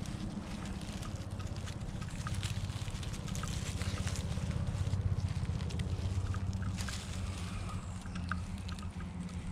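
Steady low rumble of wind on a small camera microphone, with scattered light crackles of dry leaf litter as a northern water snake crawls through it and is handled.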